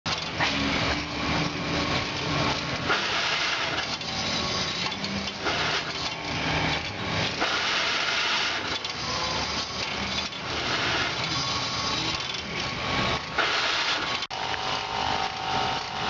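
Keck-Gonnerman steam traction engine running under load, belted to a sawmill, with a steady rhythmic mechanical clatter and beat.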